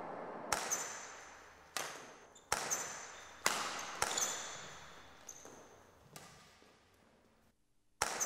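Badminton rally: rackets striking a shuttlecock, a string of sharp hits about a second apart, several in quick pairs, each with a short high ring and an echoing tail.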